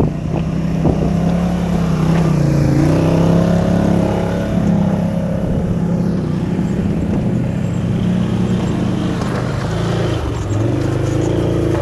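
ATV engine running under load on a boulder climb, its pitch falling and rising again and again as the throttle is worked.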